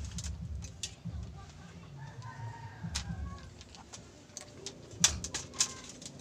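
Light clicks and knocks of plastic parts being handled as an LED ceiling light's driver housing and circuit board are turned over and set down, with a couple of sharper clicks about five seconds in.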